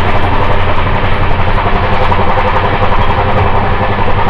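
Loud, steady running noise of an express train coach travelling at about 120 km/h, heard from inside at the coach end: a constant low rumble of the wheels and bogies with rattling on top.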